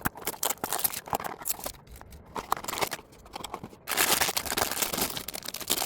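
Jigsaw puzzle packaging being handled and opened: scattered clicks and crinkling, then a steady rustle lasting about two seconds near the end.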